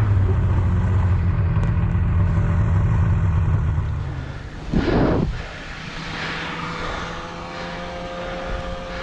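A motor running steadily with a low hum, dropping away about four seconds in, then a brief rush of noise about five seconds in.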